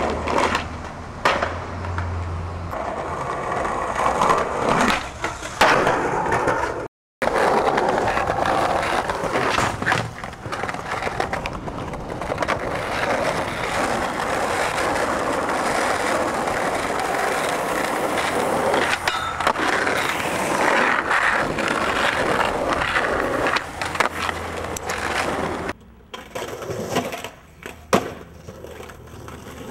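Skateboard wheels rolling on pavement and concrete in a steady rumble, with sharp clacks of the board now and then. The sound cuts off abruptly twice, at about 7 s and about 26 s, where one clip ends and the next begins.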